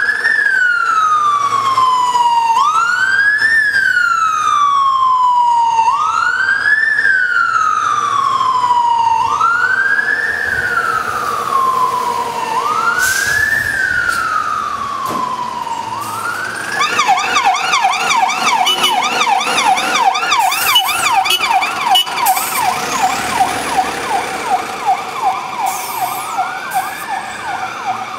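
Fire service light rescue unit's electronic siren in slow wail, rising quickly and falling slowly about every three seconds. About two-thirds of the way through, a second siren in a fast yelp, several cycles a second, becomes the loudest sound and then fades, and the slow wail comes back near the end.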